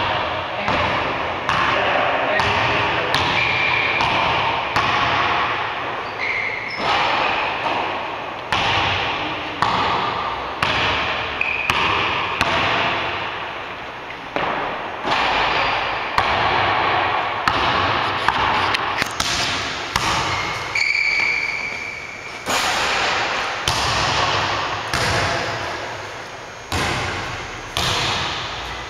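Basketball bouncing on a hardwood gym floor, about one bounce a second, each echoing in the hall, with a few short high squeaks of sneakers.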